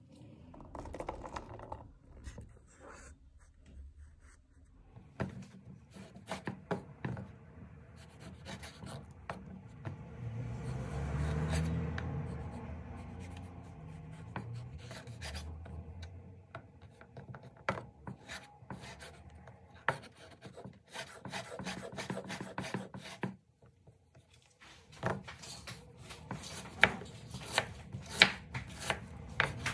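Kitchen knife working on a wooden cutting board: scattered cuts and scraping strokes as cured pork is sliced, then a run of quick, sharp chopping knocks near the end as an onion is chopped.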